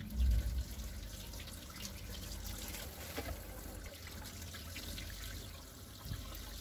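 Kitchen tap running steadily, water splashing over raw trout fillet pieces as they are rinsed by hand in a stainless steel sink and a plastic colander. A dull bump sounds just after the start.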